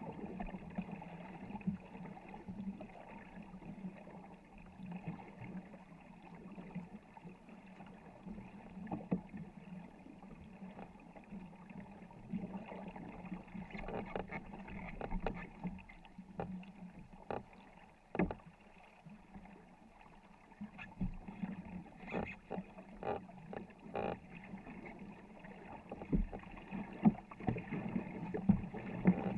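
War canoe being paddled hard by its crew: paddle blades dipping and splashing stroke after stroke, with water washing along the hull. Sharp short knocks and splashes come more often in the second half.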